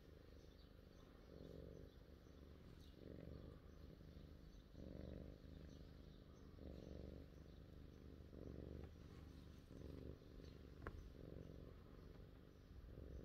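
British shorthair cat purring faintly while being stroked, the purr swelling and easing about every two seconds with its breathing: a contented purr. A single small click near the end.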